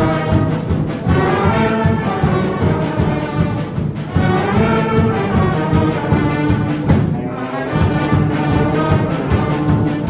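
Military wind band of brass, saxophones and drum kit playing a piece in held chords, thinning out briefly about seven seconds in before the full band comes back.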